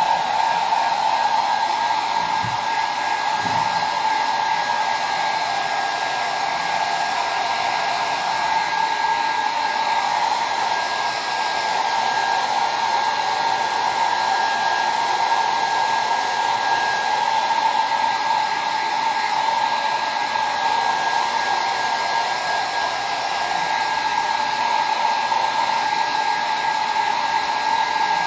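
Handheld hair dryer running steadily, with a thin steady whine over the rush of air.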